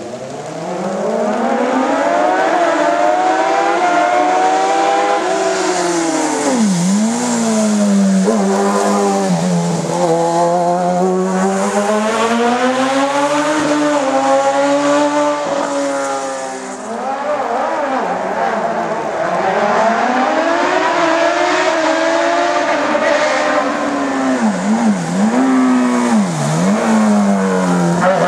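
Hill-climb race car engine under hard acceleration, its pitch climbing through the gears and dropping sharply on lifts and downshifts several times as it drives through a series of corners.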